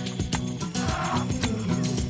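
Background theme music: regular drum hits over held low notes, with a brief swell about a second in.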